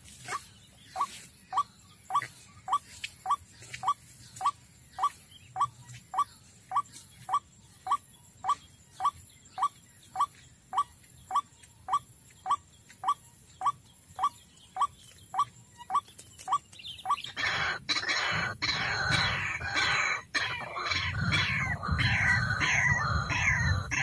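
White-breasted waterhen calls: a steady series of short single calls, about two a second, then about two-thirds of the way through a much louder outburst of harsh, rapid, overlapping croaking calls.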